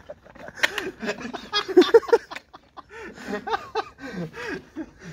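Men laughing and talking indistinctly.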